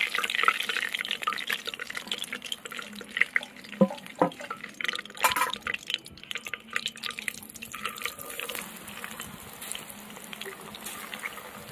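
Hot oil in a wok sizzling and crackling as beaten egg is drizzled into it by hand, puffing up into a lacy egg net, with two sharp knocks about four seconds in.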